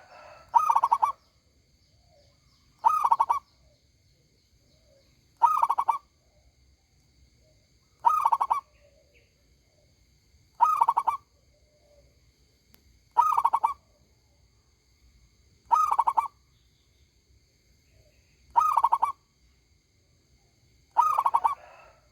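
Zebra dove (local perkutut) cooing in a loud, ringing voice: a short phrase of rapid staccato coos, repeated about every two and a half seconds, nine times in all. A faint, steady high-pitched whine runs underneath.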